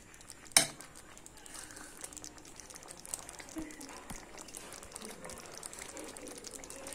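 A steel spoon clinks once sharply against the pan, then a thick tomato curry simmers faintly in it, with a few small ticks.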